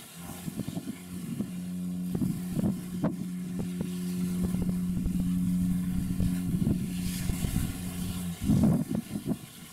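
Ship's horn sounding one long, steady, low blast of about eight seconds that stops abruptly, with wind buffeting the microphone.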